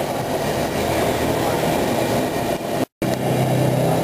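Steady roar of a gas stove burner under a wok of boiling water. The sound cuts out for an instant about three seconds in, and a low hum is stronger after it.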